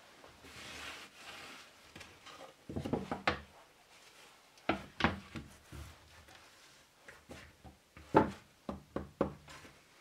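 Weathered wooden boards being handled on a wooden workbench: a soft scrape of wood sliding on wood, then three clusters of sharp wooden knocks about three, five and eight seconds in, the last the loudest.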